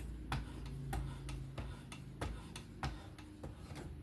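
Light, unevenly spaced clicking, about three clicks a second, from a fixed-angle knife sharpener being worked.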